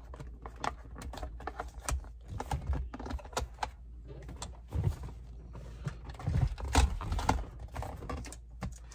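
Irregular light clicks and knocks of plastic console parts being handled and shifted while the charger's wire is fed through a drilled hole.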